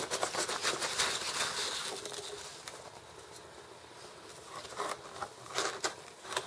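Packing peanuts rustling and squeaking as hands push them around a plastic deli cup inside a foam-lined shipping box. The rustling is dense during the first two seconds, then quieter, with a few sharp clicks near the end.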